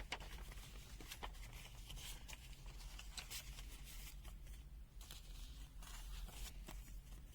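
Faint handling noises: scattered light clicks and rustles over a steady low hum.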